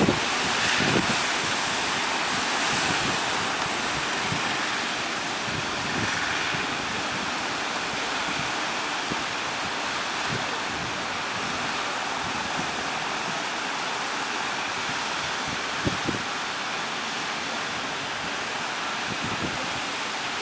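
Ocean surf breaking as a steady roar of waves, with wind buffeting the microphone in short low gusts, the strongest at the very start and about 16 seconds in.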